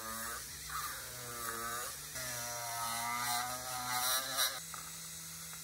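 Handheld rotary tool spinning a felt polishing wheel on small brass parts, its motor whine dipping and recovering in pitch as the wheel is pressed on and eased off. A few light clicks come just before the end.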